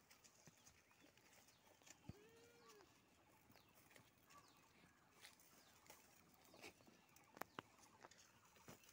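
A goat bleats once, faintly, about two seconds in: one short call that rises quickly and then holds. A few faint clicks and rustles follow later.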